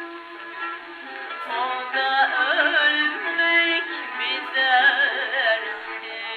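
A Turkish meyhane song playing: an ornamented melody whose lines waver and bend, over a steady lower accompaniment.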